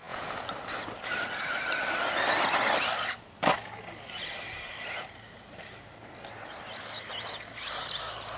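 Electric RC buggy, an RC10B4, running on a dirt track: a thin electric motor whine over tyre and dirt noise, with a single sharp knock about three and a half seconds in.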